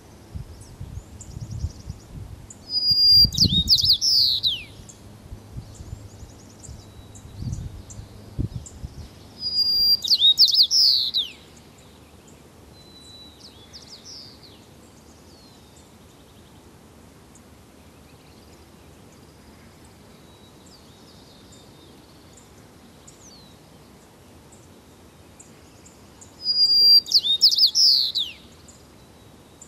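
A white-crowned sparrow singing its song three times. Each song opens with a clear whistle and runs into quicker falling notes, and lasts under two seconds.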